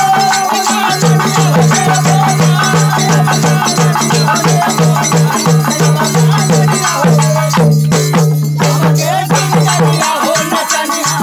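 Dhobi geet folk dance music with a fast, steady drum beat and busy melody over it.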